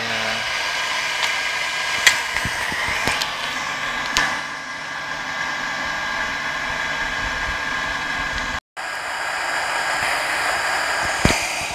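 Steady rushing roar of a homemade charcoal-fired melting furnace under forced air, with a few sharp clicks and knocks. The sound cuts out for a moment about three quarters of the way through and then carries on.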